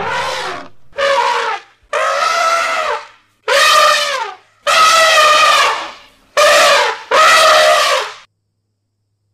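Indian elephant trumpeting: a run of about seven loud, brassy calls in quick succession, each between half a second and a second and a half long, several dropping in pitch as they end. The calls stop a little after eight seconds in.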